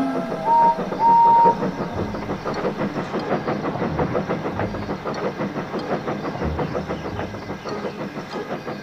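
Steam train running on the rails, its wheels clattering over the track with a hiss of steam, after two short high whistle toots about a second in.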